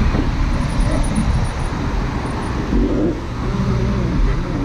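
Steady road and traffic noise picked up from a moving bicycle: passing motor traffic, with wind rushing over the microphone as a dense, even rumble.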